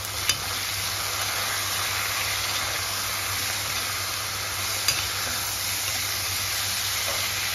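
Potato wedges and dill leaves sizzling in oil in an aluminium kadhai while being stirred with a metal spoon, a steady frying hiss with a couple of clinks of the spoon against the pan, one just after the start and one about five seconds in.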